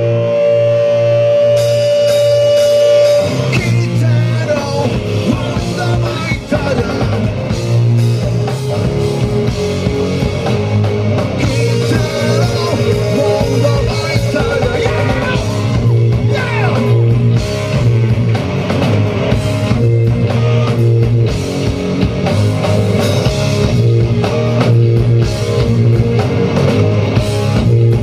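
Rock band playing live: a single held guitar note for about three seconds, then the full band comes in with electric guitars, bass, drum kit and singing.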